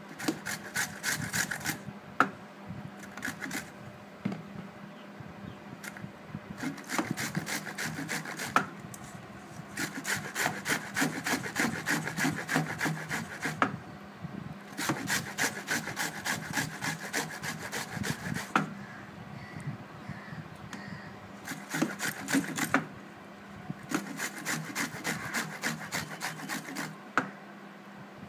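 Peeled raw mangoes being grated by hand on a grater: quick, rhythmic rasping strokes in runs of a few seconds, with short pauses between the runs.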